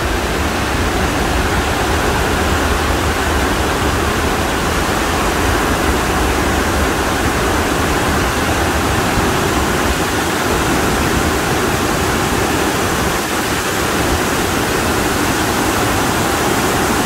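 Torrential monsoon rain pouring down, a loud, steady, unbroken hiss with no let-up.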